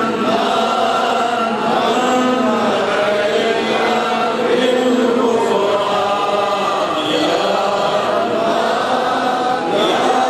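A man's voice chanting an Islamic devotional recitation (zikr) through a microphone, in slow, drawn-out melodic lines.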